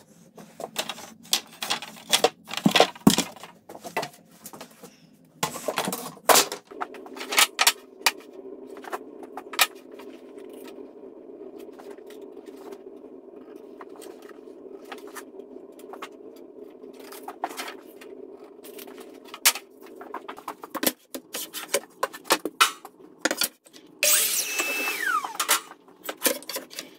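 Workshop handling sounds: repeated knocks and clatter of wooden boards, with a low steady hum through the middle. Near the end a DeWalt miter saw runs and cuts, and its motor then winds down with a falling whine.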